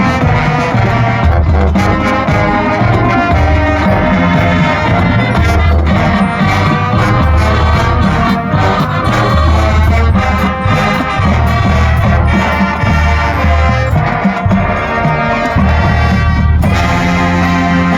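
Marching band playing a Christmas medley, with brass leading over recurring low bass notes and percussion. The music changes character near the end.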